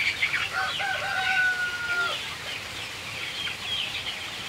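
A flock of chickens calling, with many short high calls throughout. About half a second in, a rooster crows once, a held call of about a second and a half that drops at the end.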